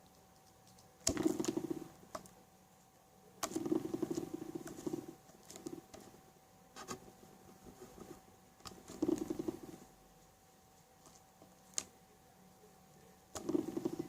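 Glossy slime being squeezed and stretched in the hands: a handful of short, irregular squelching bursts with small clicks and pops between them.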